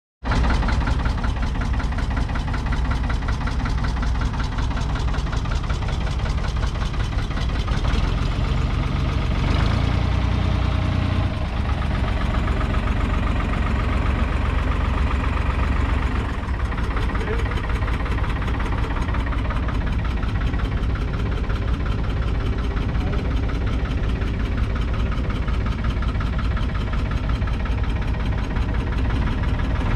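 1948 Ferguson TEA20 tractor's 1.9-litre four-cylinder petrol engine idling steadily.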